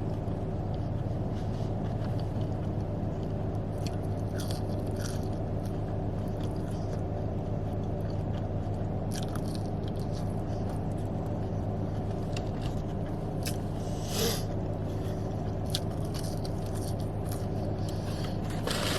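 A person chewing and eating fast food, with scattered wet mouth clicks and smacks over a steady low hum.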